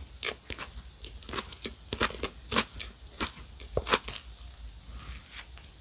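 Close-miked chewing and biting of a ricotta club sandwich, with crisp crunches from the bread crust coming irregularly several times a second. The loudest crunches come about two and four seconds in.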